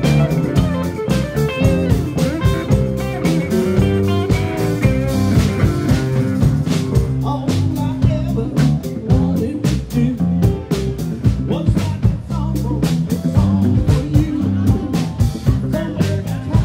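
Live rock band playing an instrumental passage, guitar over bass and drums, with the drum hits coming thicker in the second half.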